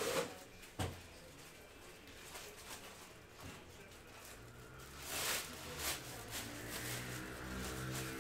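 Two sharp knocks, then faint rustling and handling of trading-card boxes and pack wrappers being opened.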